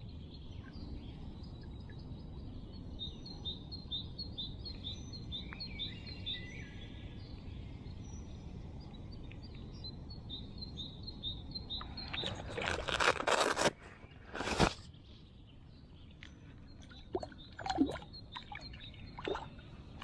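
A small songbird sings a rapid run of high, evenly spaced chirps over a steady low rumble outdoors. Near the middle, a loud rushing noise lasts about two seconds and is followed by a sharp burst. Scattered clicks and scrapes come near the end.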